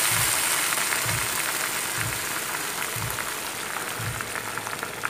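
Warm water poured into a wok of hot oil and frying raw papaya and peas: a sizzle that settles into fast crackling and bubbling as the liquid boils on a high flame, slowly dying down.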